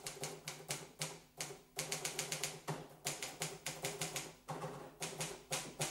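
Typewriter keys clacking in quick, irregular runs of strokes, several a second, with short pauses between runs.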